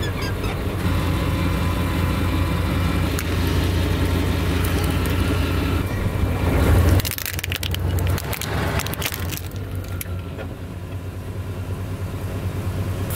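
A truck engine idles steadily while its tire rolls onto a plastic toy tow truck, which cracks and crunches loudly as it breaks about six to seven seconds in. After that, quieter scattered cracks of plastic follow, and the engine hum drops away.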